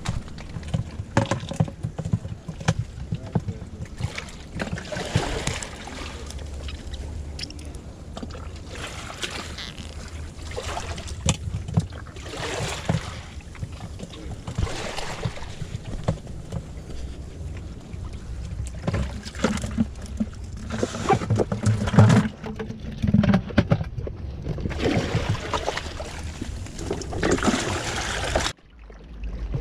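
Rustling, scraping and knocking handling noise on a body-worn camera as the wearer moves about and steps over shoreline rocks, over a steady low rumble of wind on the microphone. The sound drops out briefly near the end.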